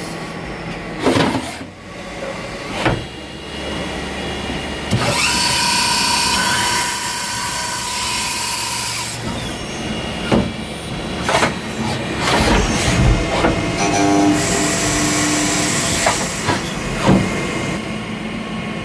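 Manurhin K'MX 916 Swiss-type CNC lathe running a machining cycle: motors whining at several steady pitches in two stretches, about five and fourteen seconds in, with sharp clicks and knocks scattered between.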